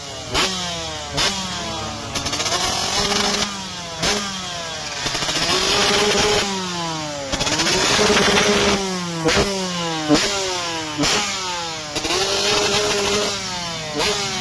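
TM 125 two-stroke single-cylinder motocross engine with an aftermarket exhaust, revved hard again and again. The pitch climbs sharply, sometimes holds at the top, then drops away as the throttle closes, with crisp crackles between the revs.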